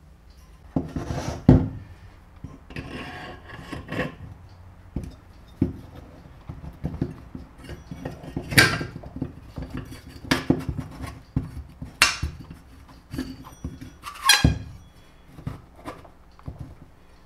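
Metal parts and tools being handled and set down on a workbench: irregular knocks, taps and scrapes, with three louder clanks that ring briefly.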